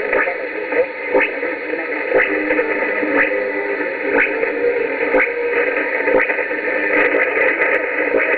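Shortwave AM reception of Radio Logos on 4865 kHz: a weak signal buried in static, hiss and steady tones, with no clear programme audio. A sharp tick comes through about once a second.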